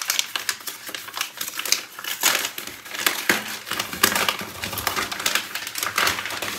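Paper packaging being unwrapped and crinkled by hand: a dense, irregular run of crackles and rustles.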